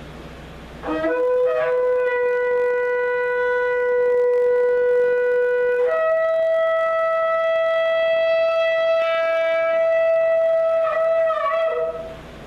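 A shofar blown in one long blast of about eleven seconds, announced as the last-trumpet blast of Christ's return. It sounds a lower note for about five seconds, then jumps up to a higher held note that wavers and breaks off near the end.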